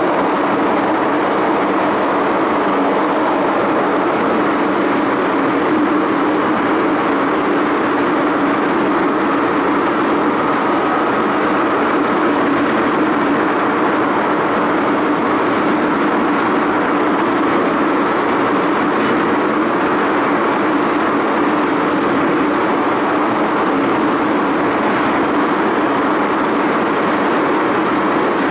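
MTR M-Train metro train running at steady speed through a tunnel, an even, unbroken running noise of wheels and motors.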